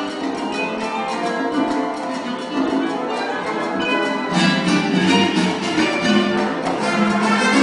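Classical guitar and symphony orchestra playing a rumba movement; the full orchestra comes in louder about four seconds in.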